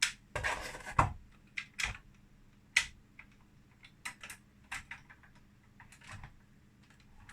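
A string of light clicks and knocks as a 1:24 die-cast metal model car is handled and set on a display turntable. The loudest knocks come in the first three seconds, with softer ticks after.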